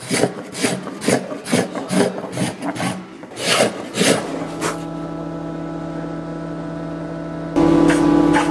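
Spokeshave shaving wood: a quick run of short rasping cutting strokes, about three a second, for roughly the first four seconds. Then background music of steady held low notes carries on alone.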